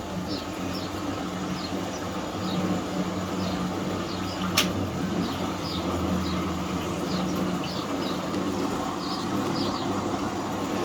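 Fisher & Paykel MW511 washing machine going into its spin, its motor and drum giving a steady hum with light, repeated high chirps. A single sharp click comes about four and a half seconds in.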